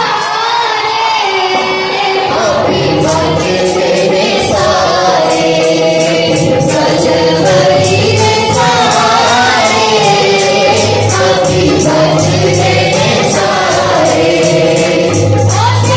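A choir of young women and girls singing a Punjabi/Urdu Christian hymn (masihi geet), over a steady beat of sharp percussive hits.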